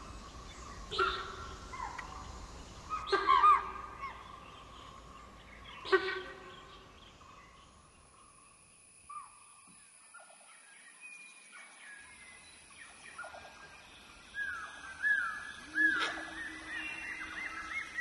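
Sambar deer alarm calls: four loud, short honks in the first six seconds, two of them close together. After that come quieter short bird notes over a thin, high, steady insect whine, and from about four seconds before the end a busy run of high, falling chirps.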